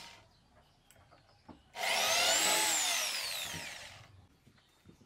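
Cordless drill run at a mounting hole in a 15-inch woofer's frame: one burst of about two seconds, starting about two seconds in, its motor whine falling in pitch as it loads down. Small clicks and knocks of handling come before it.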